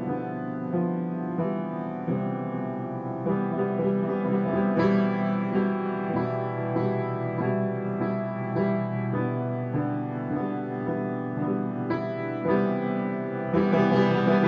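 Instrumental background music, its notes changing at a steady pace and growing louder about a second before the end.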